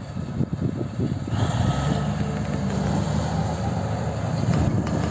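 Heavy earth-moving machine's diesel engine running steadily, with a low, even hum.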